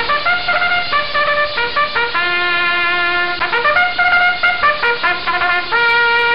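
A short instrumental tune played as a stock sound effect: quick separate notes with a longer lower note in the middle, ending on a long held note.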